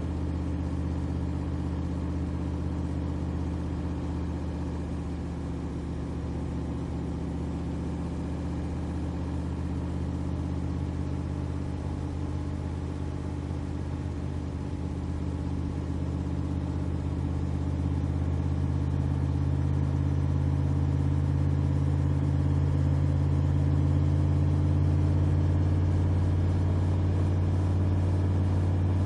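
Backdraft RT3 roadster's 427R V8 crate engine running steadily on the road, a deep even drone that grows louder a little past halfway through.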